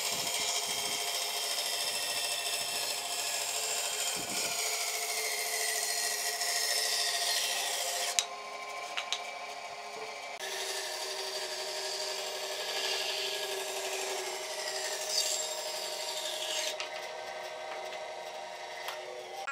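Electric sander working a wooden surface: a steady motor hum under a dense scraping rub, in two long passes with a short lift-off about eight seconds in.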